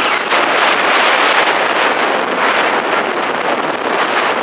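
Loud, steady rushing noise of a Mitsubishi being driven over sand, dominated by wind buffeting the microphone.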